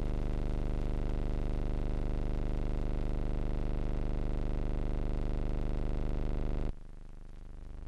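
Steady low electrical hum with many overtones, the kind left on a film transfer that has no soundtrack; about seven seconds in it drops abruptly to a much fainter hum.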